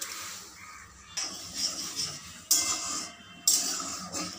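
Washed mung dal being tipped from a steel bowl into a metal kadai of hot water with splashing, then a spatula stirring and scraping in the kadai, with a metallic ring near the end.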